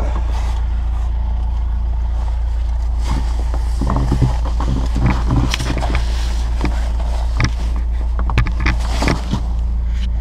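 Excavator's diesel engine running steadily, with irregular scraping and knocks starting about four seconds in.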